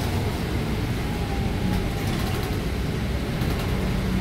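Steady rumble of a city bus under way, heard from inside the cabin: engine and drivetrain running, with tyres on a wet road.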